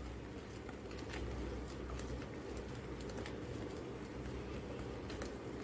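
Faint ticking and scraping of a wire whisk stirring dry flour mix in a plastic tub, over a low steady hum.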